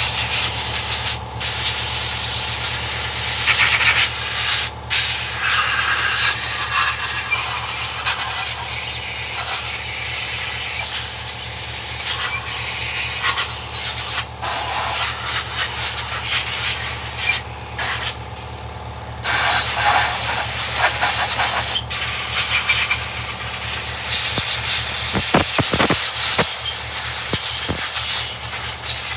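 Compressed-air blow gun hissing as it blows water off freshly washed parts, the trigger released briefly a few times, once for about a second.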